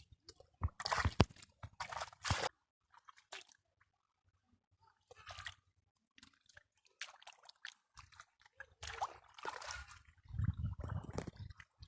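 Irregular wet squelching, sloshing and dripping, like hands working in shallow muddy water. A few short squishes come in bursts, there is a quieter stretch in the middle, and heavier sloshing near the end.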